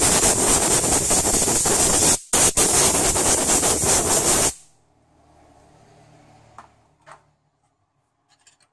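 Compressed-air blow gun hissing as it blows out the exposed valve body and connector of a 5L40E automatic transmission, cut off briefly about two seconds in and stopping about halfway through. A few faint clicks follow.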